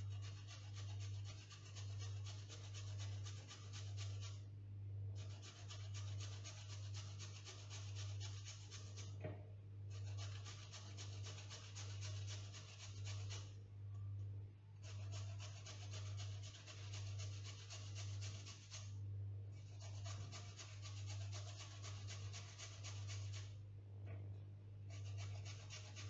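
A carrot rubbed back and forth on a flat stainless-steel hand grater: a rapid rasping scratch in runs of about four seconds with brief pauses between them, over a steady low hum.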